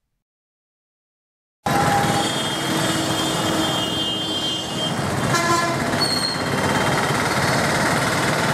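Silence for about a second and a half, then busy road traffic starts abruptly: a steady din of engines and tyres, with vehicle horns honking several times.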